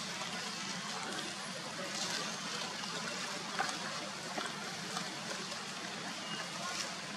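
Steady outdoor background hiss with a few faint scattered ticks and rustles.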